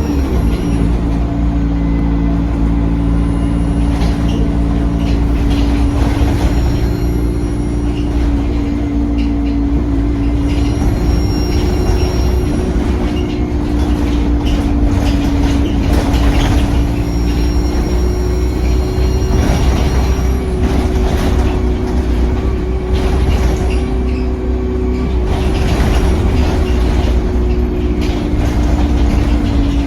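Diesel engine of a Stagecoach double-decker bus running under way, heard from on board, a steady drone whose pitch drifts slowly up and down as the bus pulls along. A faint high whistle comes and goes over it.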